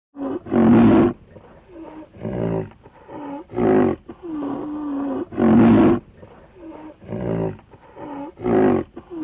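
A large animal calling in a long series of loud, harsh calls about every one and a half to two seconds, each pair of calls linked by a quieter, pitched, drawn-out breath.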